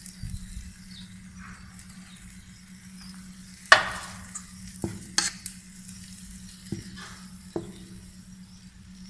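Metal spoon stirring boiling water into flour in a metal bowl to make dough, with a faint hiss and a few sharp clinks of the spoon against the bowl. The loudest clink comes a little under four seconds in.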